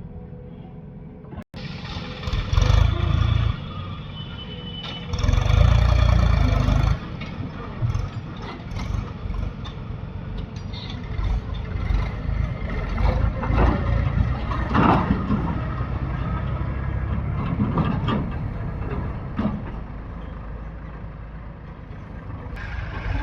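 Heavy diesel machinery working at a mud-loading site: an engine rumbling and surging hard twice in the first seven seconds, then running on with repeated knocks and clanks.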